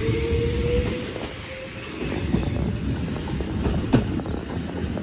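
Wakayama Electric Railway 2270-series electric train pulling away: a motor whine rising in pitch fades out about a second and a half in, leaving the rumble of the wheels and clicks over the rail joints as the train moves off, with one sharp click about four seconds in.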